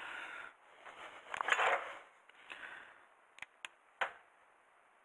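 Hand work on a Mercedes W115 brake caliper, with a metal retaining clip being bent around the piston's dust seal. Rustling and scraping come first, then three short sharp clicks about three and a half to four seconds in.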